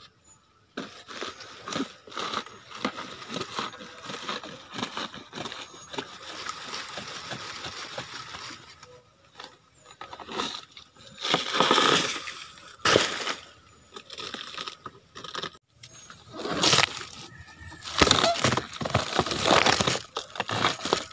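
Banana pseudostem being cut into with a machete and its wet, fibrous leaf sheaths pried and peeled away by hand. Irregular scraping and tearing sounds, with louder bursts in the second half.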